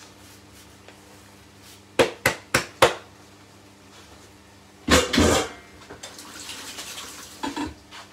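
Kitchen cookware and utensils knocking: four quick sharp knocks about a third of a second apart, then a louder clattering scrape a couple of seconds later, followed by a soft hiss and two light knocks near the end.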